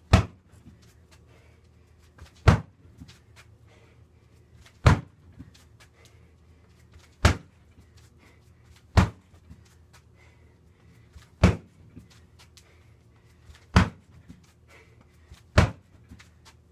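A freestanding heavy bag being struck hard: eight single sharp thuds, one about every two to two and a half seconds, with faint lighter taps between them.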